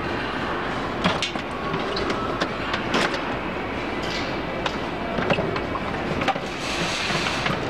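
White plastic tubs and lids knocked and shifted by hand, giving irregular knocks and clatter over a steady mechanical rumble.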